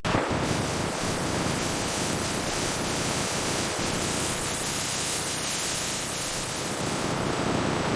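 Steady rushing noise, spread evenly from low to high pitches, with no distinct tones or strikes; it starts abruptly as music cuts off.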